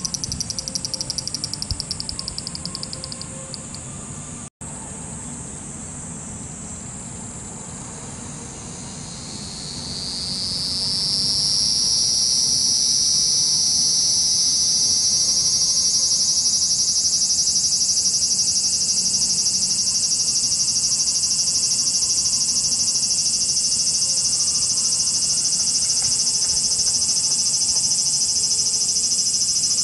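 Cicadas buzzing: a pulsing high buzz fades out over the first few seconds, there is a brief dropout about four and a half seconds in, then another cicada starts up about nine seconds in and swells over a few seconds into a loud, steady, high drone.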